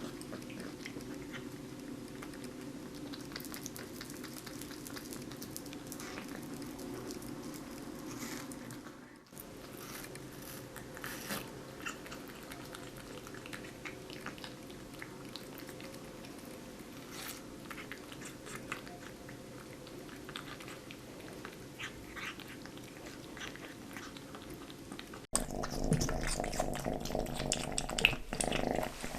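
A cat chewing watermelon: soft, wet, irregular clicks of biting and chewing. About 25 seconds in, the sound cuts abruptly to a louder passage of a kitten eating.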